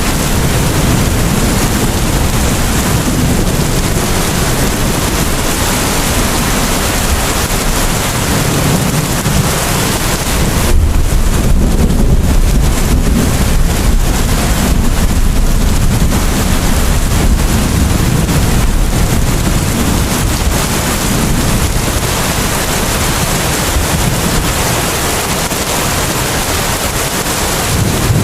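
Heavy rain falling steadily, a dense even hiss over a deep rumble. About ten seconds in, the hiss turns duller and the rumble grows louder.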